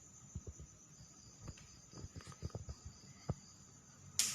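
About a dozen faint, irregular soft knocks and thuds, with a brief loud hiss near the end, over a faint steady high-pitched tone.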